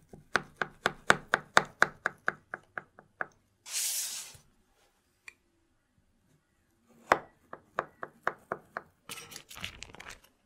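A knife blade worked around the inside edge of a metal loaf tin to free a baked cake: a quick run of sharp ticks, about six a second, that fades out, then a brief rustle, a second shorter run of ticks, and a longer rustle of parchment paper near the end as the cake is released.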